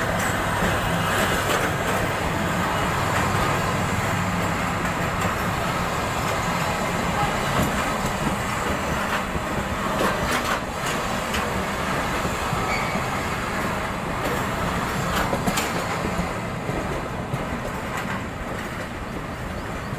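Passenger train coaches rolling past close by: a steady rumble of wheels on the rails with a few sharp clacks. The sound eases slightly near the end.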